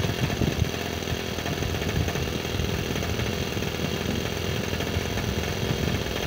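O.S. FS-26S-CX four-stroke model glow engine in a 1/12-scale live diesel locomotive, idling steadily on methanol and castor-oil fuel.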